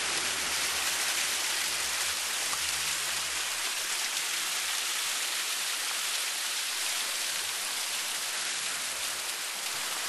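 Water splashing steadily down a landscaped boulder waterfall, an even rushing and splattering over the rocks.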